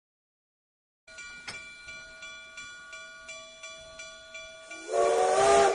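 A locomotive bell ringing steadily, about three strokes a second, after a second of silence; near the end a loud train whistle sounds a several-note chord over it.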